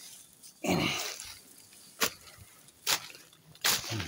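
A man breathing hard while climbing a steep hill: a voiced, grunt-like breath about a second in, then three short, sharp puffs of breath about a second apart.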